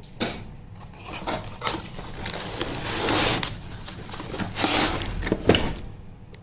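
Laptop box contents being handled: rustling of packaging with scattered clicks and knocks, and a sharper knock about five and a half seconds in.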